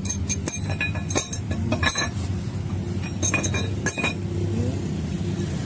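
Metal tools and bolts clinking and tapping against the engine in scattered groups of sharp, ringing clinks, over a steady low hum.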